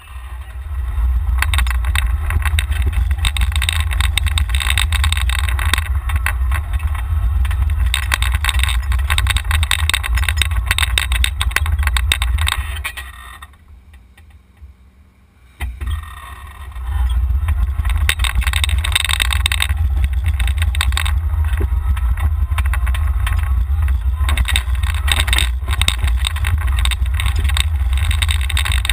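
Golf cart driving, heard from a microphone mounted on the cart: a heavy low rumble from wind and motion, with dense rattling and road noise. The noise falls away for about three seconds midway, then picks back up.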